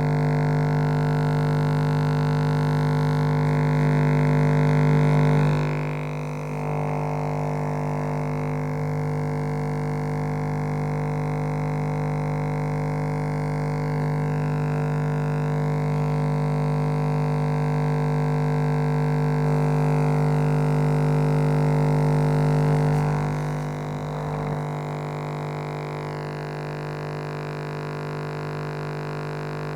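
Electric shaver motor buzzing with a steady, even pitch. It is loudest for the first few seconds, drops slightly about six seconds in and again near the end.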